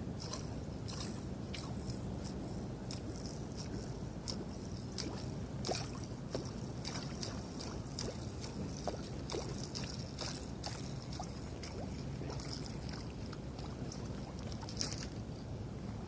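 Water lapping and sloshing, with many small irregular clicks and ticks over a low steady rumble; one sharper tick stands out about twelve seconds in.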